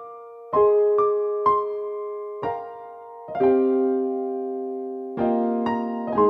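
Slow, gentle solo piano or electric piano music: single notes and soft chords struck a few at a time, each ringing out and fading before the next.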